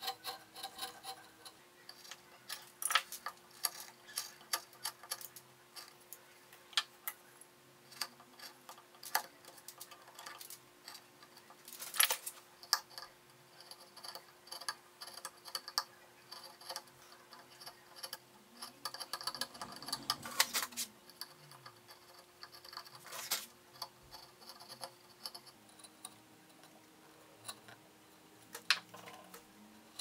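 Hand carving chisels and gouges cutting into basswood: a run of irregular, short, sharp clicks and scrapes as the edges slice the wood, busiest about halfway through. A faint steady hum lies underneath.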